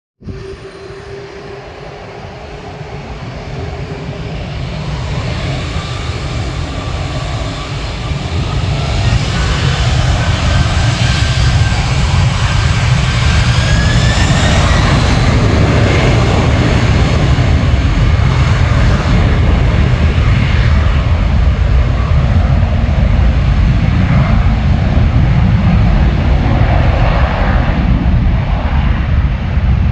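Twin jet engines of a Boeing 767-400ER airliner (GE CF6-80C2 turbofans) growing louder over several seconds, then a loud, steady rumble. Whining engine tones rise in pitch partway through.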